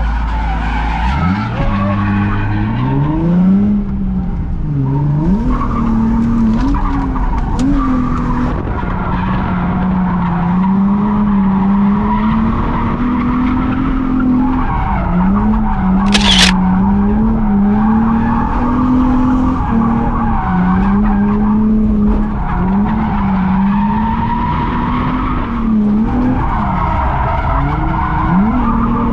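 Infiniti G35's VQ V6 engine revving hard from inside the cabin, climbing about a second in and then rising and falling again and again with the throttle, while the tyres squeal and skid as the car drifts. A brief sharp noise comes about halfway through.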